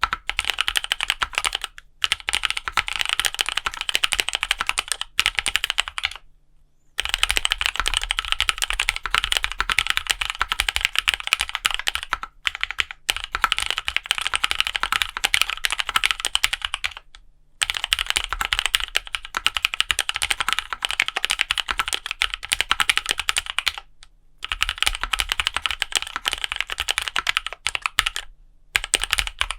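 Fast typing on a custom gasket-mount 60% mechanical keyboard, a KBDfans D60 fitted with lubed Novelkeys x Kailh Cream linear switches and clear ABS keycaps. It makes a dense run of keystrokes, broken by about five short pauses.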